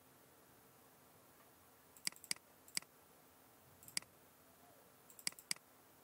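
Computer mouse clicking: about six short, sharp clicks spread over a few seconds, a couple of them in quick pairs, over a faint steady room hiss.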